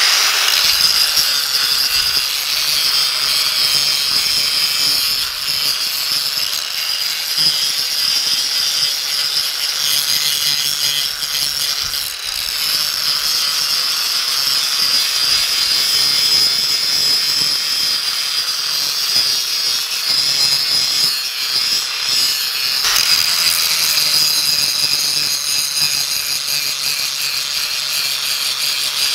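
Angle grinder with a coarse sanding disc grinding the rusty steel face of a sledgehammer head: a steady high-pitched grinding hiss over the hum of the motor, taking out pitting before finer flap-wheel work.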